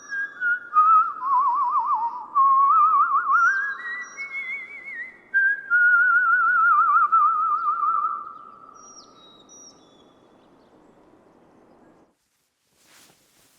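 A person whistling a tune with fast warbling trills on the notes, fading away about eight seconds in. Birds give short high chirps now and then.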